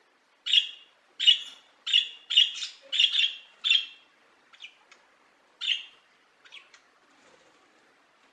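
A bird calling: a quick run of six short calls, then a pause, a single further call and a few faint short clicks.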